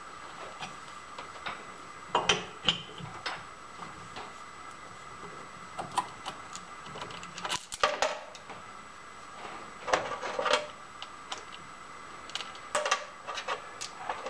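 Scattered metal clinks and knocks of tools and parts being handled while a metal lathe is set up to turn a piece between centers. They come in small clusters over a faint steady hum.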